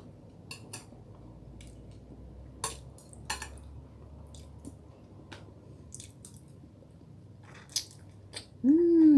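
Person eating: scattered soft clicks and taps of cutlery and dishes with quiet chewing. Near the end comes a short, louder voice sound that rises and then falls in pitch.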